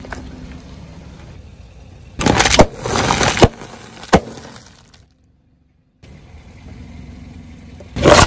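A car tyre crushing packaging and crunchy snacks, with the car's low engine rumble underneath: a loud crackling crunch about two seconds in, a single sharp crack at about four seconds, a second of silence, then another loud crunch near the end as the tyre rolls onto a plastic toy.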